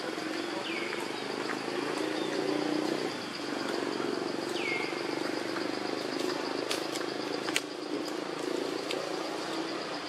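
Outdoor forest ambience: a steady high insect drone over a low constant hum, with two short falling chirps, one about a second in and another about five seconds in.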